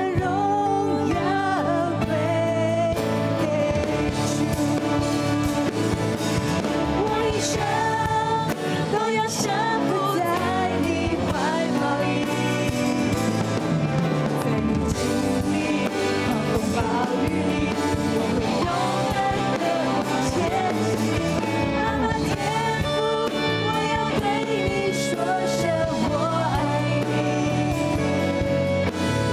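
A woman singing a Mandarin Christian worship song live, to keyboard accompaniment.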